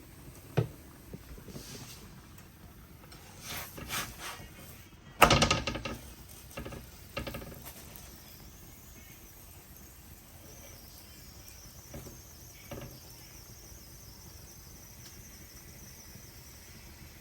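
Kitchen handling noises: a few knocks and clatters, the loudest about five seconds in, and a faint high sizzle of the oiled dhal puri frying on the hot pan.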